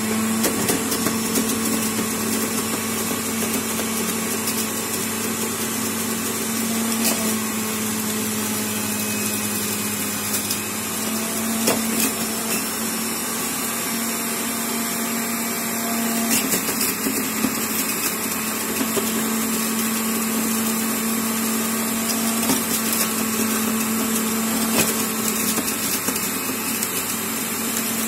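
Vitek 3653 centrifugal juicer's 1 kW motor running steadily at speed with a constant hum, broken by a few sharp knocks.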